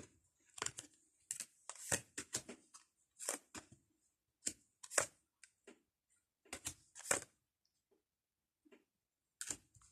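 Playing cards being handled and laid out on a table: faint, irregular short slaps and swishes, some in quick clusters, with pauses between.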